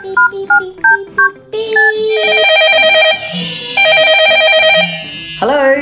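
A quick run of short electronic beeps, then a trilling telephone ring that sounds twice, each ring about a second long.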